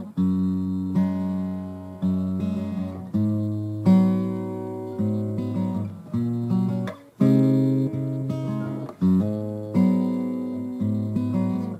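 Guitar music: chords struck about once a second, each ringing and dying away before the next.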